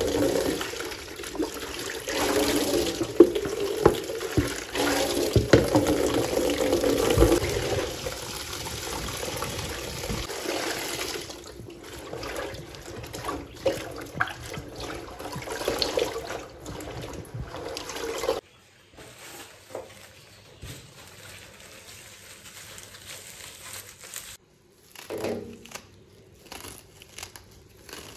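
Tap water pouring hard into a plastic basin in a steel sink, then hands swishing and splashing pumpkin leaves in the water. For the last ten seconds it drops much quieter, with light handling noise and a single knock.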